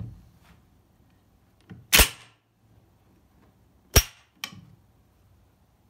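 Benelli 121 SL80 12-gauge semi-automatic shotgun's action being worked by hand: a light click, then the bolt slams shut with a loud metallic clack about two seconds in. Two more sharp metal clacks follow near the end, the second weaker.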